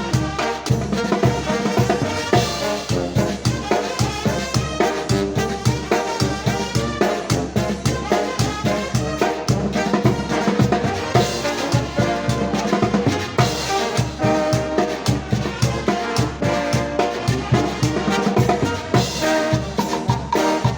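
Mexican banda (brass band) playing a cumbia: trumpets and trombones carry the melody over a steady, even drum beat.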